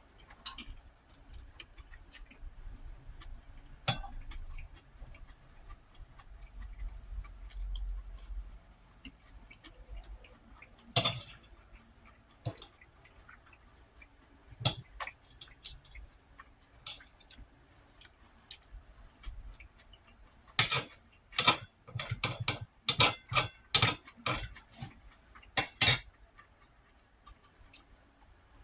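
Eating utensil clinking and scraping against a dish, in scattered single clicks, then a quick run of clinks near the end.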